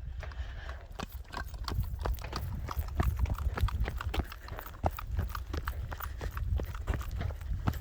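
Quick, uneven footsteps of a person running, with a low rumble underneath.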